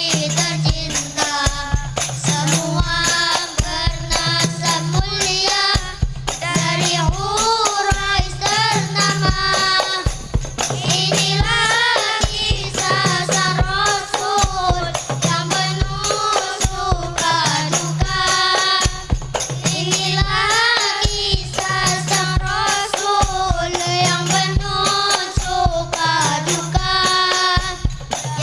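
A single voice singing an ornamented devotional melody over a steady beat of hand drums and tambourine.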